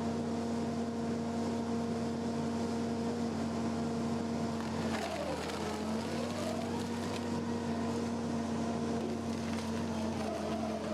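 Stump grinder's engine running steadily at speed. About five seconds in its pitch dips briefly and recovers, with a smaller dip near the end.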